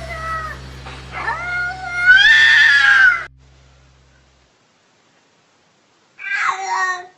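Domestic cat meowing: one long, bending meow lasting about two seconds, then a pause and a shorter meow near the end. A low steady hum sits under the first half.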